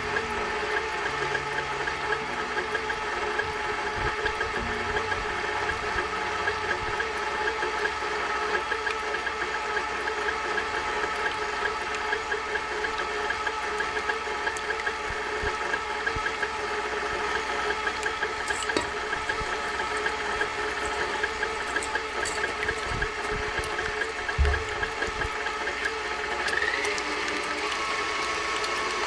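KitchenAid stand mixer running steadily at speed, its motor and gears whining with a light rattle as the wire whisk beats egg whites into foam.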